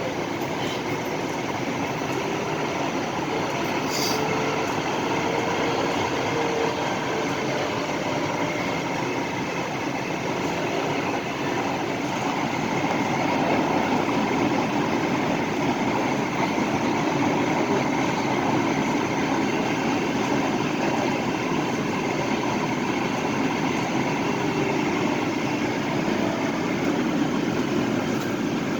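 Inside a light-rail car running underground between stations: the steady rumble of wheels on rail and the traction motors, with a faint whine gliding up and down about six seconds in and again near the end.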